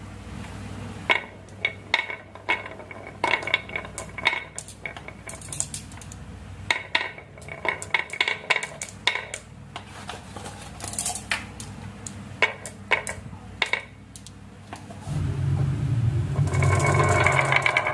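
Glass marbles rolling down a run, clicking against each other and the track in quick, irregular clacks. Near the end a small motor starts up with a low hum and then a steady buzz.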